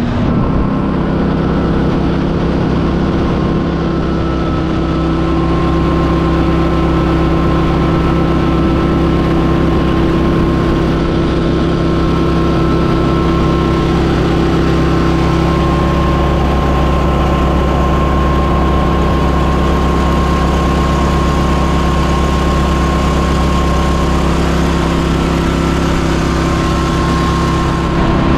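Briggs & Stratton Vanguard EFI engine of a mud boat running steadily at speed, close up, with the surface-drive's spray rushing behind the hull.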